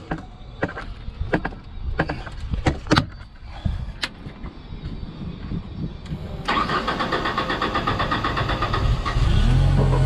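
Clicks and knocks from the key and switches on a Genie S-60 boom lift's control panel. About six and a half seconds in, the engine starts cranking on the starter, then catches near the end and settles into a steady run. It now starts with a replacement relay fitted in place of one whose windings were green and corroded.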